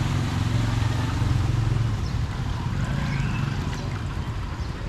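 Motor vehicle engine running steadily, a low hum that eases off a little about two seconds in.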